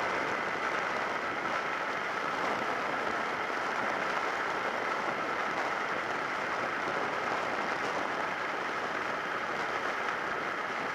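Steady rush of wind and road noise from a Suzuki SV650S motorcycle riding along at a constant pace, picked up by a bike-mounted action camera's microphone, with a faint steady whine underneath.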